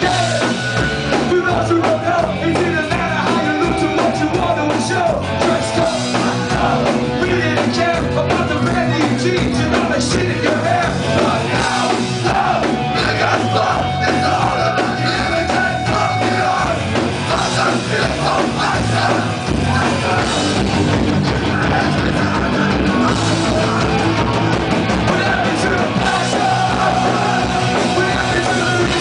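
Hardcore punk band playing live at full volume: distorted electric guitars, bass and drum kit, heard from within the crowd in front of the stage.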